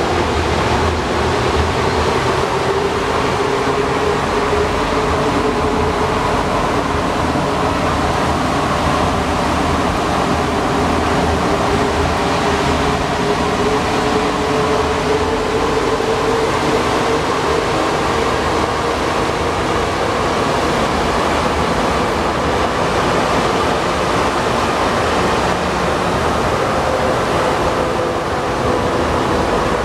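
Alstom NS-93 rubber-tyred metro train running through a tunnel, heard from inside the car: a steady rumble of running noise with a motor tone that slowly drifts upward in pitch.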